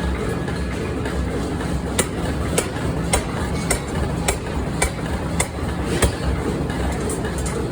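Hammer blows on metal repeating at an even pace, a little under two a second, over steady machinery noise in a forge shop.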